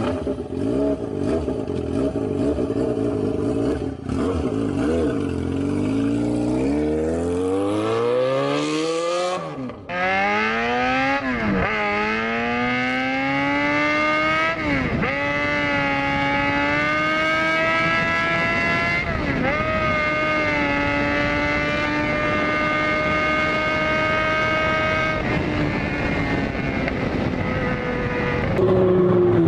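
Motorcycle engine accelerating. The pitch climbs steadily for about ten seconds, then after a brief break it rises again through several gear changes, each marked by a quick dip, before holding a high, steady pitch at speed.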